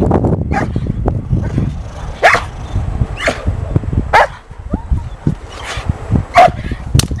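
Working dog on a leash barking repeatedly at a helper during protection training, roughly one sharp bark a second.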